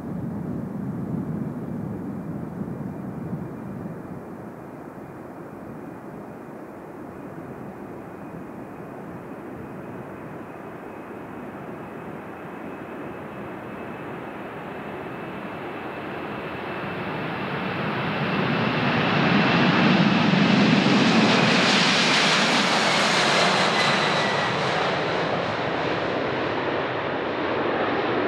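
Boeing 747-400's four jet engines at takeoff thrust during the takeoff roll. The sound grows louder as the jet comes closer and is loudest about twenty seconds in as it passes, with a high whine that drops in pitch as it goes by.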